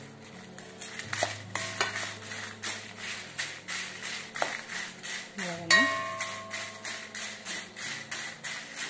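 Wooden spatula stirring and scraping dried red chillies around an aluminium kadai, dry-roasting them without oil, in quick repeated strokes. About halfway through, one sharp metallic clang rings briefly off the pan.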